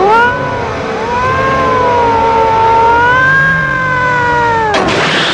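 A cat yowling: a short rising call, then one long drawn-out wail of nearly four seconds that wavers slightly in pitch. About five seconds in, a loud rushing noise cuts it off.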